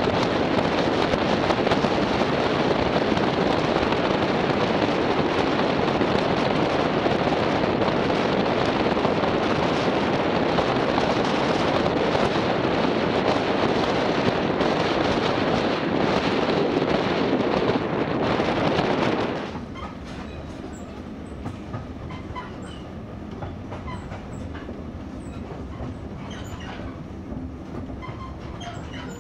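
Train running along the rails, heard from aboard: a loud, steady rumble and rushing rail noise that drops off sharply about two-thirds of the way through, leaving quieter running with faint clicks.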